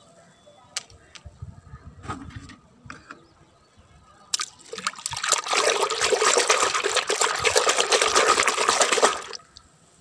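A hand sloshing and splashing in a plastic basin of soapy water, starting about four and a half seconds in and stopping abruptly about a second before the end. A few light knocks come first.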